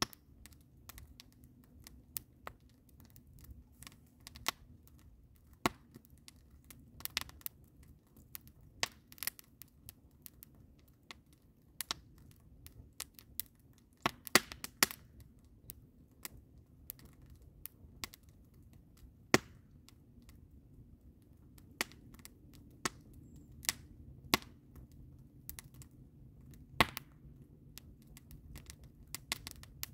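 Wood fire of logs and green conifer boughs crackling in a steel fire ring, with irregular sharp pops, a few much louder, over a faint low rumble.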